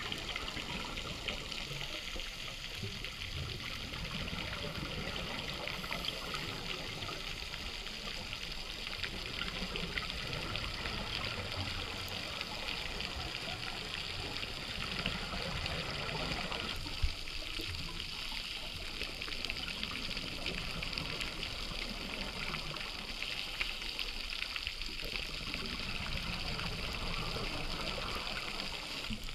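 Underwater ambience heard through a diving camera's housing: a steady hiss with fine crackle and uneven low bubbling gurgles from scuba divers' exhaled bubbles. A single sharp click comes about halfway through.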